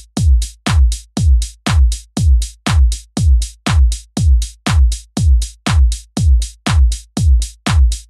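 Electronic background music with a steady, heavy kick-drum beat, about two beats a second.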